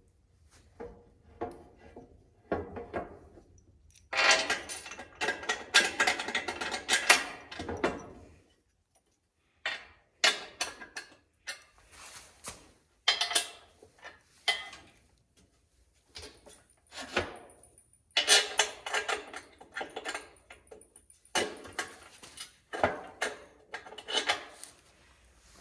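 Metal tools and hardware clinking and rattling as bolts are tightened down on a steel sawmill frame, with a dense run of rapid clicks a few seconds in and scattered clanks after.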